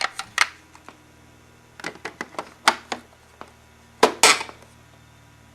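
Plastic clicks and clatter of an upright vacuum's HEPA filter and its cover being taken out and snapped back into place: scattered sharp knocks in small groups, the loudest pair about four seconds in.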